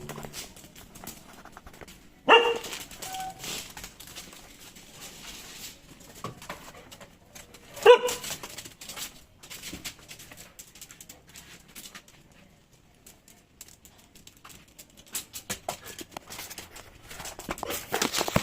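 A dog gives two short barks, about two and eight seconds in, over a run of small clicks and smacks from eating, which grow busier near the end.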